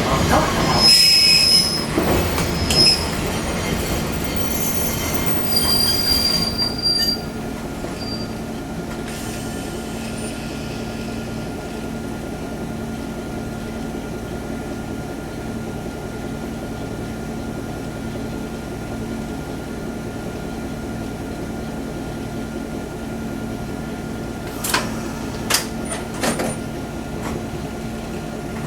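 Fukui Railway 200-series train's wheels squealing high for the first several seconds, then a steady hum from the train, with a few sharp clicks near the end.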